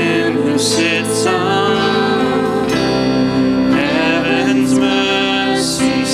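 Live worship song: voices singing over keyboard and band accompaniment, with sustained held notes.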